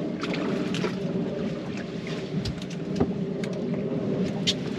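Twin Suzuki 350 outboard motors running with a steady hum, with a few light clicks over it.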